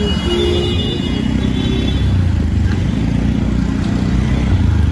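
Loud, steady rumble of road traffic, with motor vehicles running close by.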